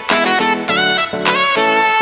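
Instrumental background music with a saxophone or brass lead playing short notes.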